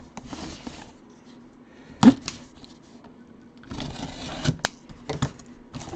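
Cardboard box and its packaging being handled and opened by hand: a sharp knock about two seconds in, then scraping and rustling with a few clicks.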